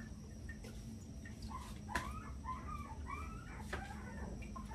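Faint chirping of small birds: a run of short, quick rising-and-falling notes through the middle, over a low steady hum, with a light knock about two seconds in.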